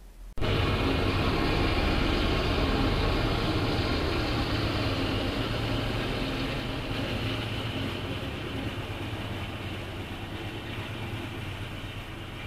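Canadian Pacific tank-car freight train passing behind its diesel locomotives, a steady low engine drone under a broad rolling rail noise. It cuts in suddenly just after the start and slowly fades.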